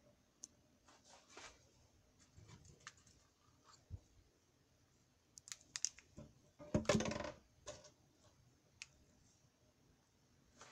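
Faint handling noise around a plastic cup and spoon: scattered light clicks and ticks, with a short clattering rustle about seven seconds in.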